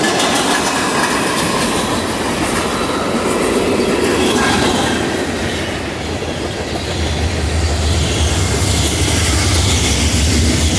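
Freight train of tank cars and open hopper cars rolling past close by: steel wheels clattering and rumbling on the rails in a steady rush. A deep steady hum joins about seven seconds in.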